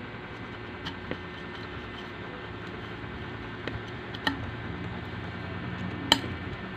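Handling noise as the plastic collar of a paracord handle is worked onto the steel mouth of an insulated water bottle: a few light clicks and taps, the sharpest near the end, over a steady low room hum.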